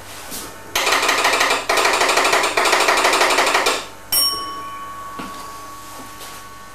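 Signal-box electric bell ringing with a fast rattle in three bursts over about three seconds. A single clear bell stroke follows and rings on, fading away.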